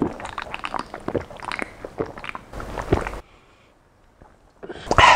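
A person gulping sparkling water from a can: a quick run of wet swallows and gulps, then after a brief silence a loud breath near the end.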